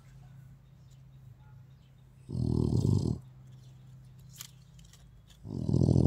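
A Rottweiler snoring in its sleep: two long fluttering snores, about two and five and a half seconds in, some three seconds apart.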